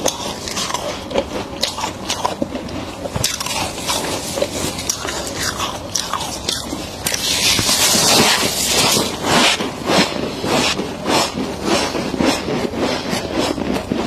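Freezer frost being scraped and scooped from a chest freezer's walls by gloved hands, with crackling clicks. From about seven seconds in a mouthful of the frost is bitten and chewed, crisp crunches about two a second.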